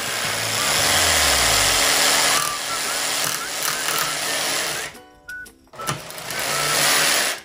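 Handheld electric jigsaw cutting a curve through a wooden board, running steadily for about five seconds, pausing briefly, then cutting again until it stops suddenly near the end. Background music plays underneath.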